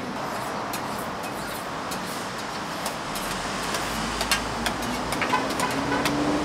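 A motor vehicle runs close by, a low rumble swelling and its engine note rising in pitch near the end. Scattered sharp clicks and taps sound over it.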